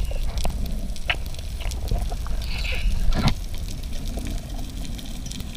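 Underwater ambience as an action camera in its housing picks it up: a steady low rumble of moving water with a few sharp clicks, the loudest about three seconds in.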